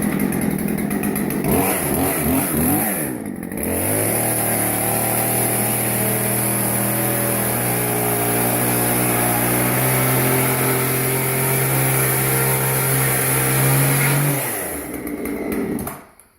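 A small engine revving unevenly for a few seconds, then running at a steady high speed with small shifts in pitch, dying away near the end.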